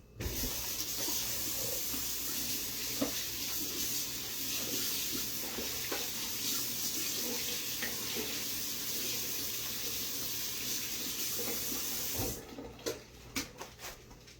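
Kitchen tap running in a steady rushing stream, turned on just as the sound begins and shut off about twelve seconds later.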